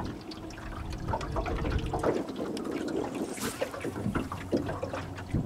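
Water sloshing and lapping against the hull of a small fishing boat, with scattered small splashes and ticks.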